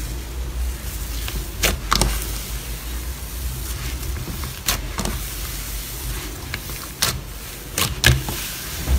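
Fingers pressing, poking and pulling apart fluffy pink cloud slime, with a low squishing rumble and several sharp sticky pops and crackles, the loudest about two seconds in and again near the end.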